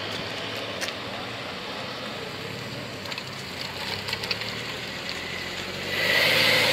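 Car engines running at low revs as tuned cars pull away, with a few light clicks; near the end the sound swells louder as a car comes closer.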